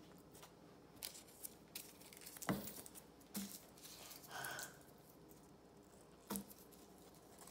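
Quiet handling of tissue paper and craft materials on a table: soft crinkling of tissue paper with a few light knocks, the sharpest about two and a half seconds in.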